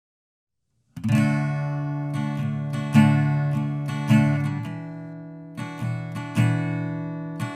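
Acoustic guitar music, strummed chords that start about a second in and ring between strokes.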